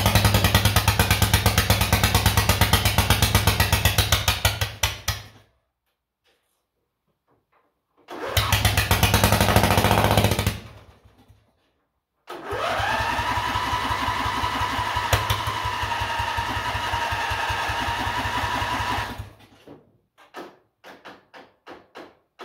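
Racing lawn mower engine running roughly and cutting out about five seconds in, catching again briefly and dying, then running more steadily with its pitch rising and holding. Near the end it breaks into a few coughs and dies: the engine is close to running right but keeps stalling.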